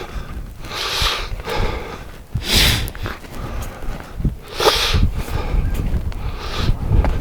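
A hiker breathing hard, with a loud hissing breath about every two seconds, over wind rumbling on the microphone.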